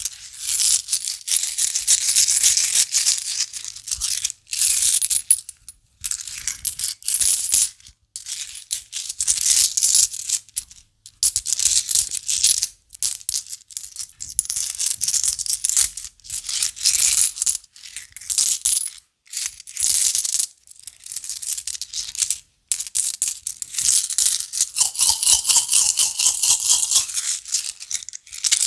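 A handful of euro coins jingling and clinking together in a hand, shaken in repeated bursts of a second or two with short pauses between. About 25 seconds in, a coin rings with a clear tone for a second or so.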